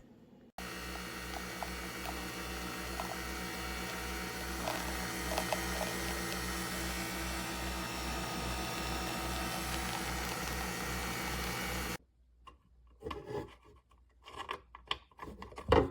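Nespresso Vertuo coffee machine running through a brew, a steady mechanical hum with a low pulsing throb a few times a second, which starts and cuts off abruptly. A few knocks and clicks follow, the loudest near the end.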